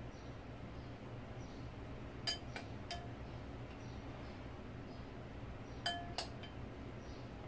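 A metal spoon clinking against ceramic dishes while seasoning is spooned onto pork ribs: two short runs of about three light clinks each, about three seconds apart, over a faint low hum.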